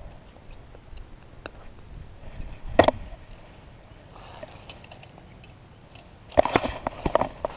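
Small metallic clinks and rattles as a spinnerbait's blades and hook are handled while unhooking a largemouth bass, with a louder short knock about three seconds in and a cluster of knocks and rustles near the end.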